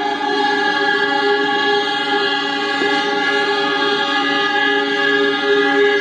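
Several diesel locomotive horns blowing at once, their different pitches merging into one steady, loud chord that is held without a break.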